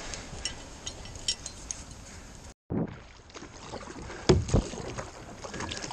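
Wind on the microphone over a kayak being paddled on open water, the paddle blades dipping and splashing. Two sharp knocks come close together about two thirds of the way through.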